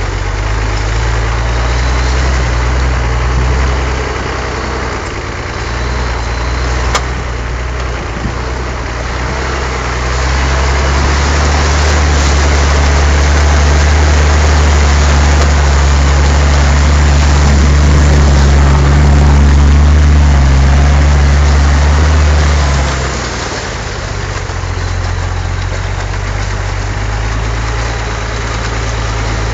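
Off-road vehicle's engine running steadily, working harder and louder from about ten seconds in for some thirteen seconds, then easing back to a lower, idle-like note.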